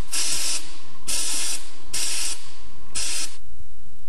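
Aerosol cleaner sprayed in four short hissing bursts, each about half a second, roughly a second apart, washing oil and debris off an engine oil screen.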